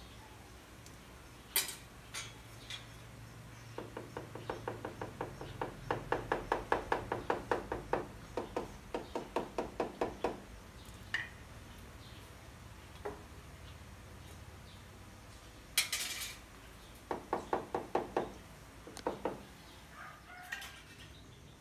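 Rubber mallet tapping ceramic stair tiles to bed them down and set them level: quick runs of light knocks, about four a second, with a few single knocks in between.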